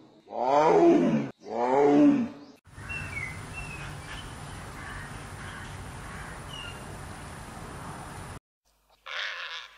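A tiger roars twice in close succession, each call falling in pitch. Then comes a steady outdoor background with a few short bird chirps, and a brief animal call just before the end.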